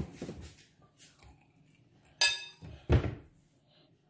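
Metal spoon clinking against a glass mixing bowl while flour is stirred into a wet marinade: one sharp, ringing clink about two seconds in, then a duller knock, with soft stirring sounds between.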